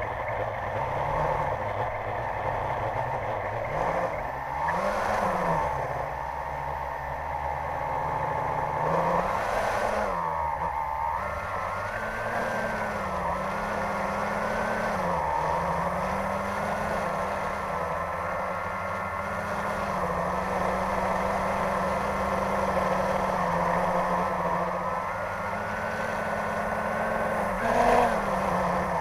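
Quadcopter drone's electric motors and propellers whirring, heard from its on-board camera, the pitch rising and falling as the motors speed up and slow down while it comes down from height. There is a brief louder bump near the end.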